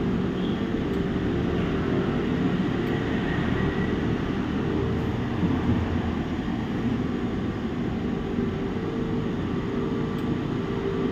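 Steady low mechanical hum and rush of running machinery, like a fan, with a few faint steady tones and no change throughout.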